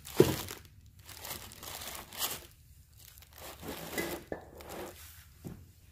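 Plastic air-cushion packing film crinkling in short bouts as steel parts are handled in a cardboard box, with one sharp knock just after the start, the loudest sound.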